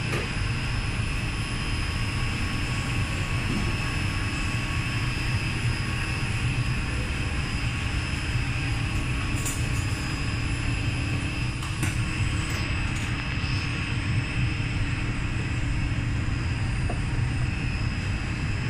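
Steady background noise of a hawker food centre: a constant low rumble with a faint high whine over it and a couple of small clicks, but no distinct voices or music.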